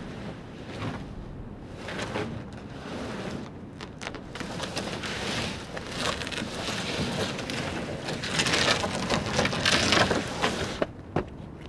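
A rushing, rain-like noise that builds over several seconds, is loudest near the end, then drops off suddenly.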